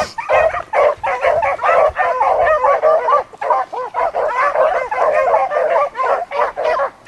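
A pack of beagles baying in chorus on a rabbit's trail, many voices overlapping without a break.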